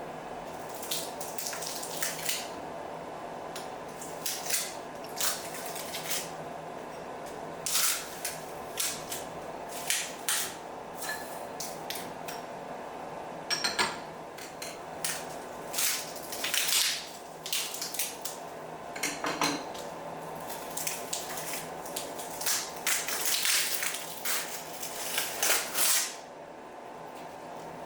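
CNC mill running with a steady hum while chips and coolant spray rattle against the machine enclosure in irregular sharp bursts.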